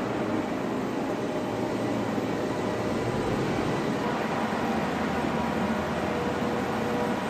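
Steady drone of aircraft engines heard inside a cargo cabin: an unbroken even noise with a few faint steady tones over it.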